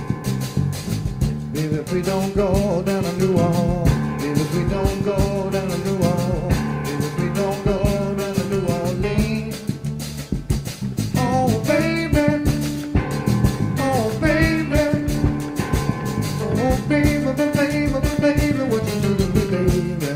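Background music: a song with a sung melody and guitar over a steady drum beat.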